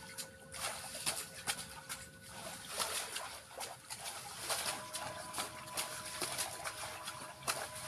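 Singing bowls ringing with steady held tones: one tone fades out about three seconds in and a different, lower-pitched tone starts about two seconds later. Under them, irregular water splashes, drips and lapping.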